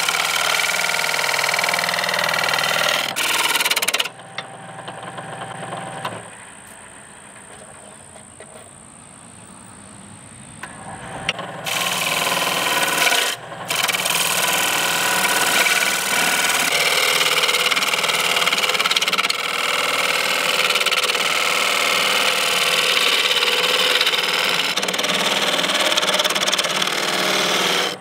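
Wood lathe spinning a wooden Cuban yoyo reel blank made from dimensional lumber, with a turning gouge cutting the wood: a loud, rough scraping hiss. The cutting stops about four seconds in, leaving a quieter stretch with a high, steady whine, and starts again loudly around twelve seconds in, with a short break just after.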